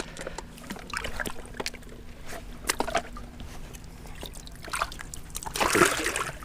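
Water sloshing and splashing at the bank's edge as a caught blue catfish is held in the water and let go, with a louder splash about five and a half seconds in. A faint steady low hum runs underneath.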